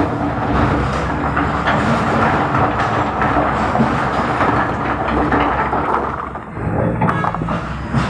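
Diesel engine of a backhoe loader running steadily as the machine moves, with a few metallic clanks near the end.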